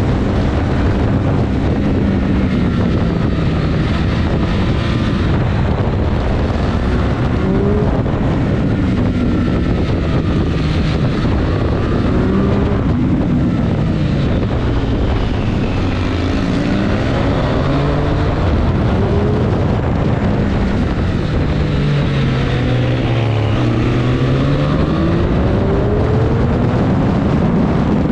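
Triumph Street Triple RS 765's three-cylinder engine at full track pace. Its pitch climbs in repeated sweeps as it accelerates up through the gears and drops back between them.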